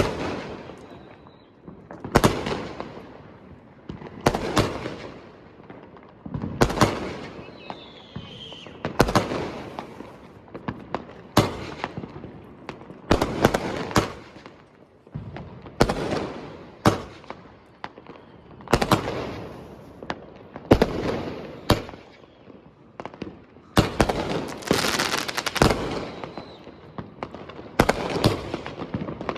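Fireworks going off in a series of loud bangs, one every one to two seconds, each trailing off in an echo.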